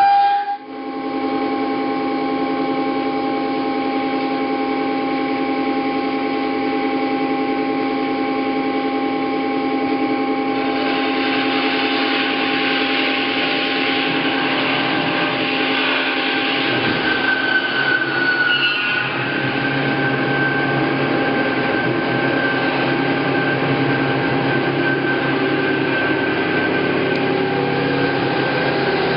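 Hyd-Mech V-18 vertical bandsaw running, its 7.5 horsepower motor and blade giving a steady hum with several constant tones. The sound drops briefly right at the start, and a louder hiss joins in about ten seconds in.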